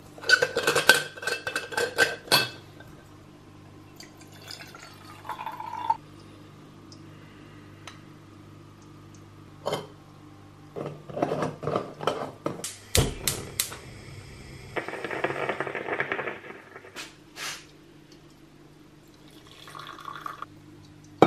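Metal clinks and taps of a spoon against an aluminium stovetop moka pot while it is filled with ground coffee and handled, in several short clusters. Near the end, coffee is poured from the moka pot into a mug.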